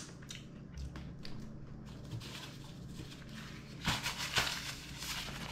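Quiet room tone with a steady low hum; about four seconds in, a short rustle of a paper napkin being handled.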